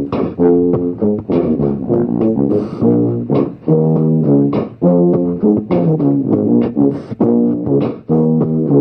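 Tuba and beatbox loop music in 15/8: a looped tuba bass line with tuba notes over it and sharp beatboxed percussion hits between them.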